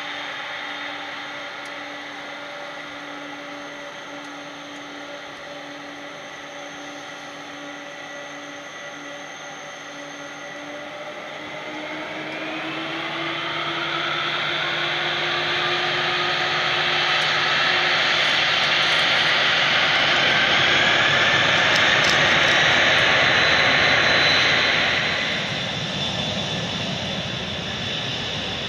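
Turbofan engines of a three-engined McDonnell Douglas wide-body freighter whining steadily at idle, then spooling up to takeoff power from about twelve seconds in, the whine rising in pitch and growing much louder. A few seconds before the end the sound drops suddenly to the quieter, steady hum of another jet airliner's engines.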